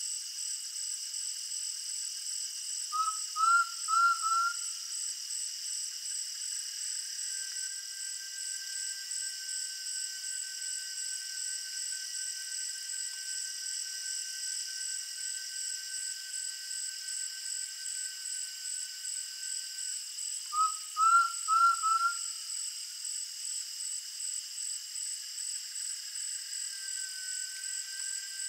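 Undulated tinamou (jaó) calling twice, each call a short series of four rising whistled notes. Behind it runs a steady evening insect chorus with a fast-pulsing high trill.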